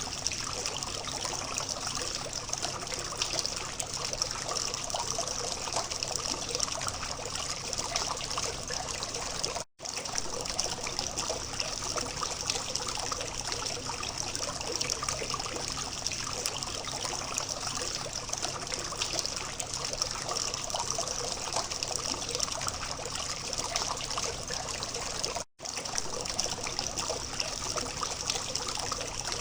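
Water from a small fountain trickling and splashing steadily. It cuts out for a split second twice, about ten seconds in and again near twenty-five seconds.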